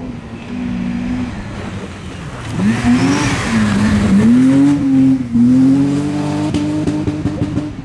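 BMW E30 rally car passing at speed on a dirt stage: engine note climbs sharply about two and a half seconds in as it accelerates past, dips and climbs again twice, then holds high as it pulls away. A burst of tyre noise on loose dirt comes as it passes, about three seconds in.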